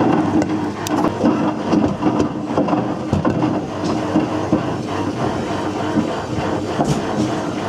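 Whirlpool WWDC 7210/1 washing machine drum turning, with hard loose objects clattering and knocking inside it continuously over the hum of the motor.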